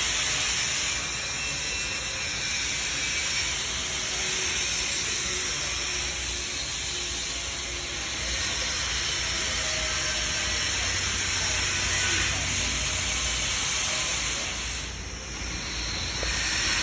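A 1.5 kW laser welding machine running: a steady hiss with a faint high whine. The hiss dips briefly near the end and then comes back.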